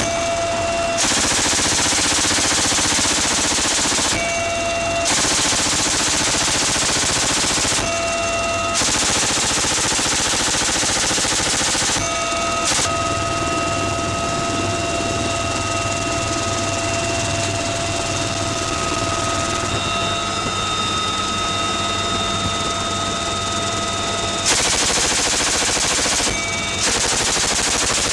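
Helicopter door-mounted GAU-21 .50-calibre machine gun firing several long bursts of about three seconds each. Between the bursts and through a long pause in the middle, the UH-1Y helicopter's steady turbine whine comes through.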